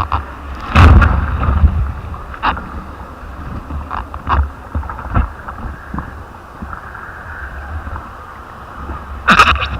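Wind buffeting the microphone in gusts, with scattered knocks and bumps, the loudest about a second in and near the end.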